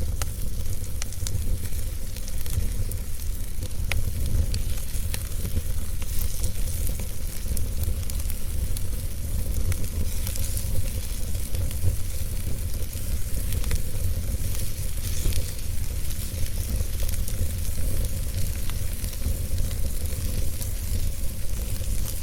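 A fire crackling, with many small, irregular pops and snaps over a steady low rumble.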